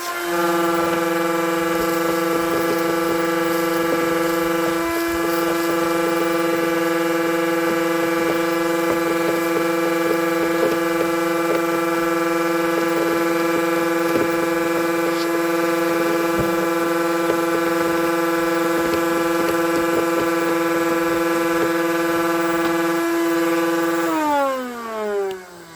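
Shop vacuum motor running at full speed with a steady, high whine while it sucks debris from a mouse nest out of an engine air filter box. About a second before the end it is switched off and the whine falls in pitch as the motor winds down.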